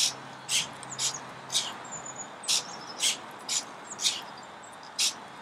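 Large quarter-scale hobby servo motors in a 3D-printed quadruped robot dog whirring in short, high-pitched spurts about twice a second as its legs move.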